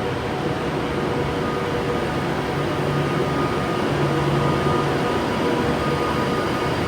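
A train running at the platform: a steady mechanical rumble with a constant hum of several tones, swelling slightly about four seconds in.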